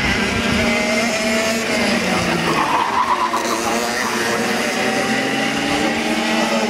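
Several KF6 racing karts' two-stroke engines running at high revs as a pack goes by, their pitch sliding down and back up.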